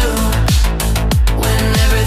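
Background music: an electronic track with a heavy kick drum beat over sustained synth chords, without vocals.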